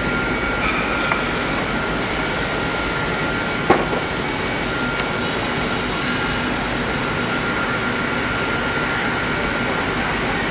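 Steady din of woodworking machinery running, such as wide belt sanders, with a faint steady high whine over it. One sharp knock about four seconds in.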